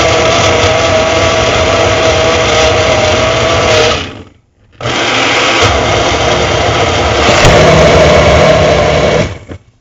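Elite personal blender's motor running loud and steady as it blends a fruit smoothie, stopping about four seconds in, then starting again after a brief pause and running for about four and a half seconds more before cutting off.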